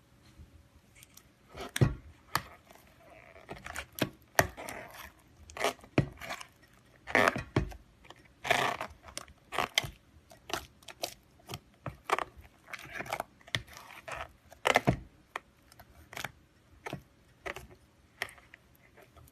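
Slime being squished and worked while it is coloured: irregular wet pops and sharp clicks, with short stretches of crackling.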